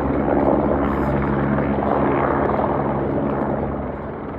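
Helicopter coming in to land on a helipad: a steady rotor and engine drone with a low, even hum under it, slightly louder about half a second in and easing a little near the end.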